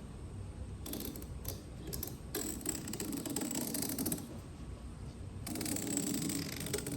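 A sharp knife blade drawn along a screen frame, slicing off excess fiberglass window screen. It makes scratchy, ratcheting strokes: two short ones about a second in, then two longer strokes of a second or two each.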